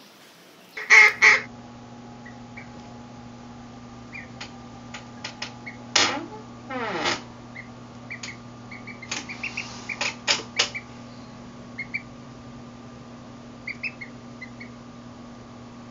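Duckling peeping: many short, high cheeps scattered through, with a few louder, rougher calls, the loudest about a second in. A steady low electrical hum runs under it from about a second in.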